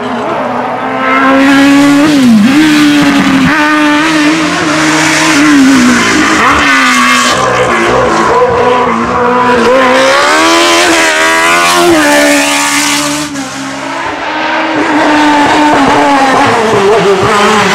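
Hill-climb race cars, single-seater formula cars and sport prototypes, driven hard up the course: engines revving high with quick shifts, the pitch climbing and falling again and again as the cars pass.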